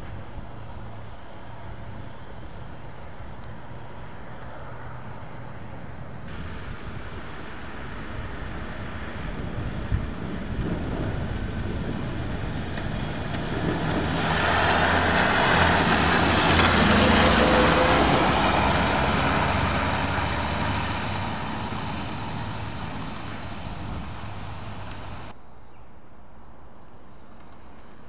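British Army MAN SV military truck driving past on a wet road: its diesel engine running under a hiss of tyres on the wet surface, growing louder as it approaches, loudest a little past halfway, then fading away.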